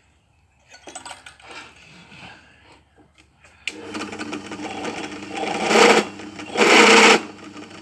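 Light clicks as a 10 mm drill bit is fitted, then an electric drill starts suddenly about four seconds in and runs steadily. Two loud surges of cutting noise near the end as the bit countersinks a 7 mm hole in a metal Meccano part.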